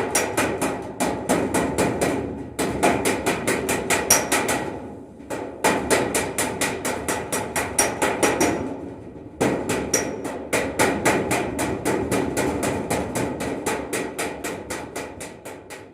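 Hammer rapidly striking a metal kandal (large water pot) being repaired, about five ringing blows a second. The blows come in runs with short pauses about 2.5, 5 and 9 seconds in, and trail off near the end.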